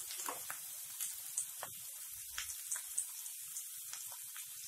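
Chopped garlic, spring onion and capsicum sizzling in hot oil in a frying pan on a high flame: a steady hiss with scattered light pops and crackles.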